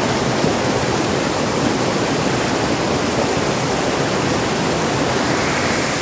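Whitewater of a rocky stream and waterfall rushing over boulders: a loud, steady, even rush with no breaks.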